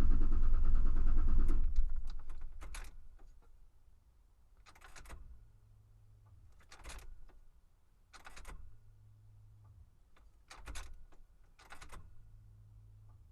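2001 Ford Explorer Sport engine being cranked on a cold start, loud for under two seconds and then dying away; the owner suspects a weak fuel pump behind the delayed cold start. After that, a few faint clicks and rattles over a low hum.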